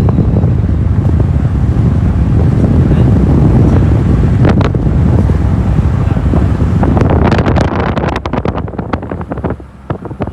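Loud wind buffeting the microphone from a moving vehicle, a heavy steady rumble that turns choppy with rapid crackles about eight seconds in.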